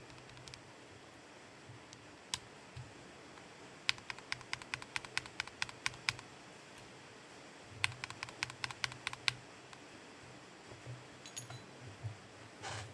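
Mechanical keyboard with Gateron Milky Yellow Pro linear switches being typed on: a single keystroke, then two quick runs of rapid keystrokes, then a few scattered softer ones and a brief rustle at the end.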